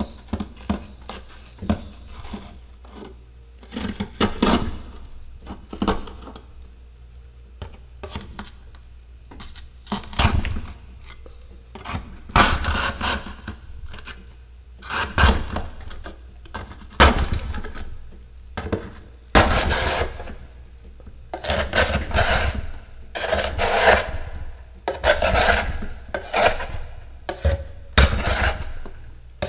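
A metal spoon scraping thick frost and ice off the inside walls of a freezer, in repeated irregular strokes about every second or two. The strokes are longer and louder in the second half.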